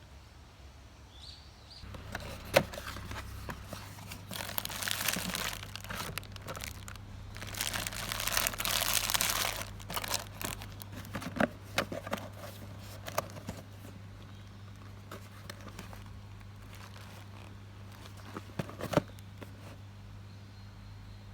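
Crinkling and rustling of something being handled, in two longer spells about four and eight seconds in, with scattered sharp clicks and knocks, over a low steady hum.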